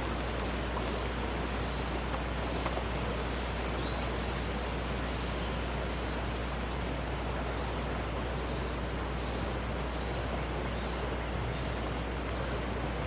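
Steady outdoor rushing noise with a constant low rumble, and a faint high chirp repeating about every two-thirds of a second.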